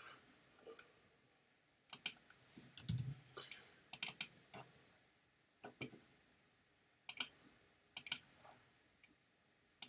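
Clicks from a computer mouse and keyboard, many in quick pairs like double-clicks, coming in small groups every second or so with quiet gaps between, and a dull thump about three seconds in.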